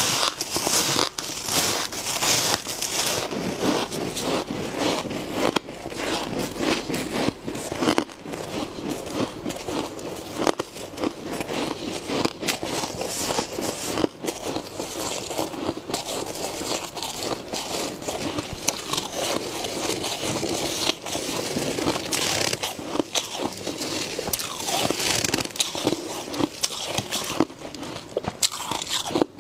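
Soft, powdery freezer frost being bitten and chewed close to a clip-on microphone: a dense, continuous run of crunches and crackles.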